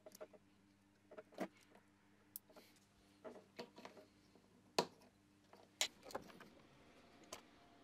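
Small plastic clicks and taps from wiring connectors being handled and pushed together on a plastic headlight housing, scattered and irregular, the sharpest one about five seconds in.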